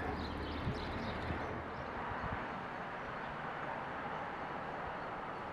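Outdoor ambience: a steady low rumble and hiss, with a few light clicks and knocks in the first second and a half.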